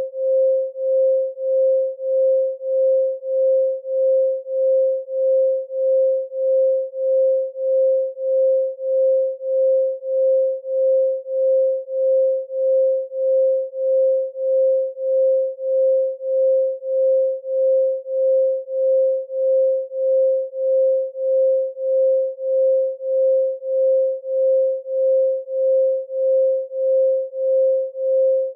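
A pure 528 Hz sine tone, one steady pitch with nothing else, pulsing evenly in loudness about three times every two seconds.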